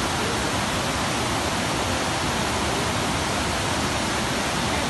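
River water released from the opened dam shutters rushing in rapids over a rocky bed: a steady, even rush of white water.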